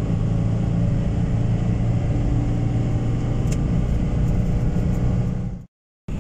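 Car cabin noise at highway speed: engine and road noise as a steady low hum. It cuts out abruptly for about half a second near the end.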